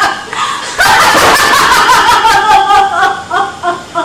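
A woman's voice laughing loudly on stage, a long, drawn-out laugh that breaks into short rhythmic gasps of laughter near the end.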